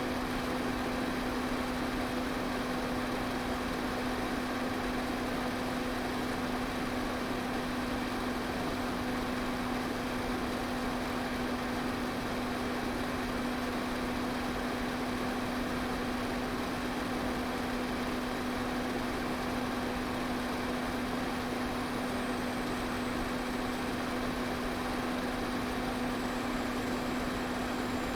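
Electric pedestal fan running steadily: an even whoosh of moving air under a constant low motor hum.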